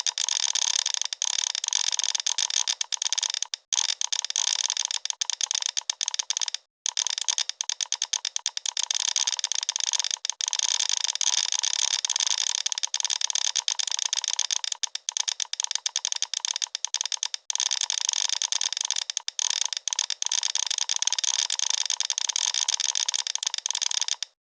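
Rapid, dense mechanical clicking and ticking, with a few brief drop-outs to silence.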